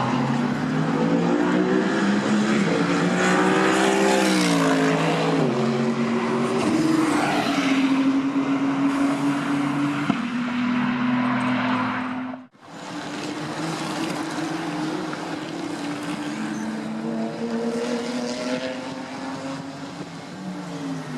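GT race car engines running hard on track: the first engine's note climbs, then drops in several distinct steps as it changes gear. After a sudden break about twelve seconds in, a second car's engine rises, holds, then falls away near the end.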